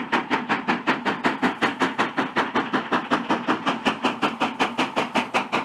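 Steam locomotive running, its exhaust chuffing in a fast, even beat of about six sharp chuffs a second.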